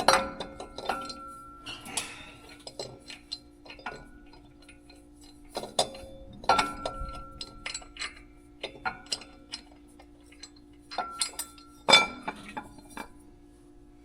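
Metal tools and parts clinking and knocking against each other at an irregular pace, several strikes ringing briefly, the loudest about twelve seconds in.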